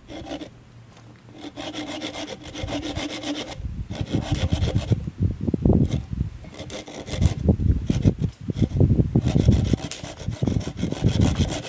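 Hand saw cutting through a dry branch: fast back-and-forth rasping strokes in runs, with a few short pauses.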